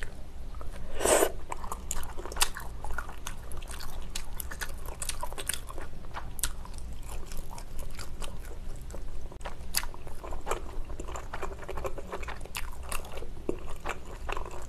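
Close-miked chewing of a mouthful of spicy tteokbokki with glass noodles: wet, sticky mouth sounds with many small clicks, and one louder noisy sound about a second in.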